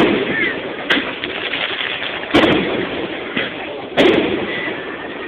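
Large aerial firework shells bursting in a rapid finale volley: four heavy booms, each followed by a long rolling echo, over the murmur of a watching crowd.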